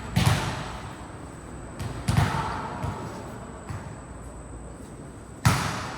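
A volleyball being struck: three loud, sharp slaps, each followed by a short echo, with fainter knocks between them.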